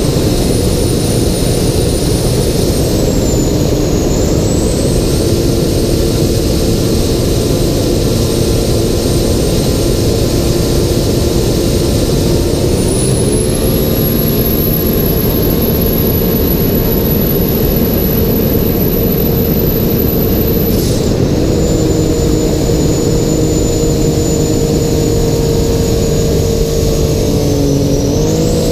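Turbocharged Sea-Doo RXP-X 300 jet ski, its Rotax three-cylinder engine running hard at speed. The engine note holds steady with a high whine over it; the whine steps up in pitch just before halfway, drops about three-quarters of the way through, and dips briefly near the end.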